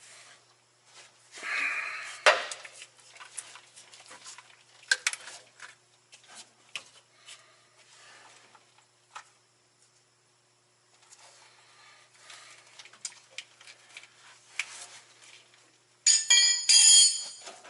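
Hand tools and metal fittings clinking and tapping while lines are connected on a truck transmission, with a scrape about two seconds in and a loud ringing metal clatter near the end.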